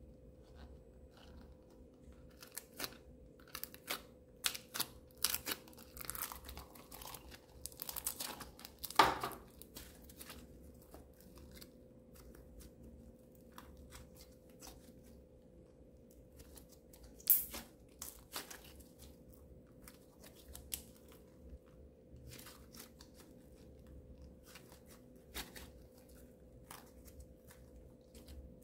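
Blue slime pulled from a plastic mold, then stretched and folded by hand: sticky crackling and small snaps, with two louder pops about a third of the way in and just past the middle.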